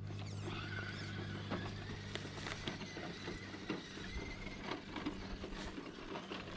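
Enduro Trailwalker RC crawler's electric motor and gears whining steadily as it drives along a rocky dirt trail, with scattered clicks and crunches from the stones and gravel.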